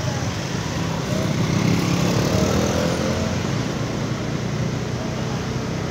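Road traffic: motorcycle and car engines running in slow, dense traffic, a steady drone with a few engine notes wavering up and down around the middle.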